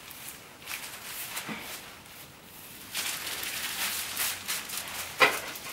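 Hair rustling and disposable gloves crinkling as gloved hands part hair with a dye brush handle, with a sharp click about five seconds in.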